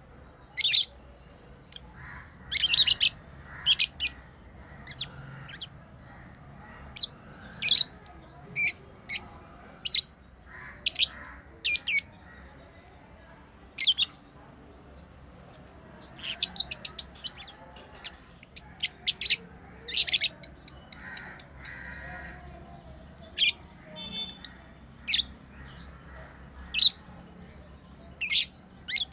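Pet lovebirds chirping: short, sharp, high-pitched calls at irregular intervals, with quick runs of several calls in a row about halfway through and again a few seconds later.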